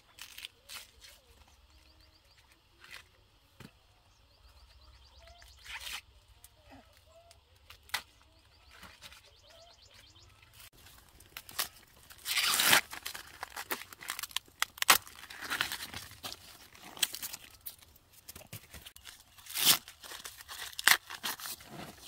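Corn plants rustling and tearing as ears of corn are broken off the stalks, with sharp snaps scattered throughout and louder bouts of rustling about halfway through.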